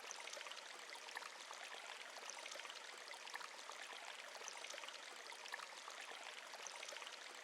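Faint, steady running water of a stream or brook, with small splashing flecks throughout, used as a nature-sound bed.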